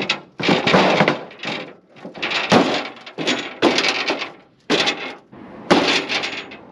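Dented steel truck hood being stomped on with work boots to flatten it: about eight loud metal bangs, roughly one a second.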